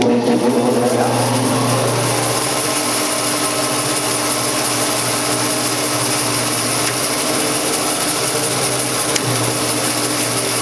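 Jet bandsaw switched on with a newly wired paddle switch, which works. The motor spins up over the first second or so, then runs steadily.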